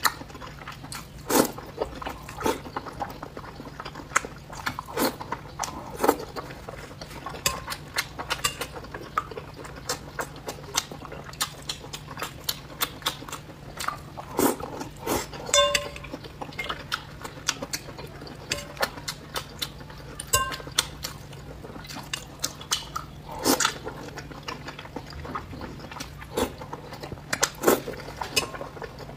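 Close-miked mukbang-style eating: wet slurps, bites and chewing smacks at irregular moments, with a low steady hum underneath.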